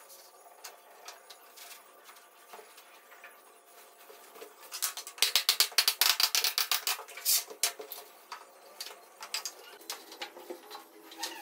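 Laminate flooring planks being knocked into place with a hammer: scattered sharp taps, then a fast run of loud hammer taps about five seconds in that lasts some two seconds.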